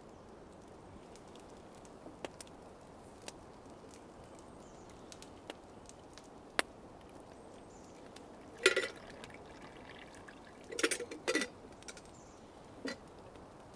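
Campfire crackling with scattered sharp pops, then water poured from a camp kettle into a cup in a few short pours: one about nine seconds in, a cluster around eleven seconds, and a brief one near the end.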